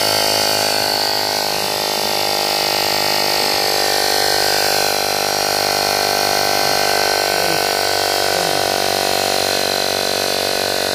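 Grandpitstop motorcycle tyre inflator's electric air compressor running steadily, pumping air into the tyre to top up its pressure.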